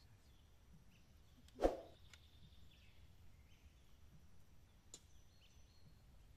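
Quiet forest ambience with faint, scattered bird chirps. A single knock sounds about a second and a half in, and a smaller click comes near five seconds.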